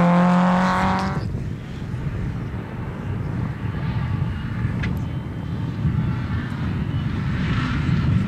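Rally car engine at high revs, its note held steady for about a second and then cutting off sharply, followed by a low, uneven rumble.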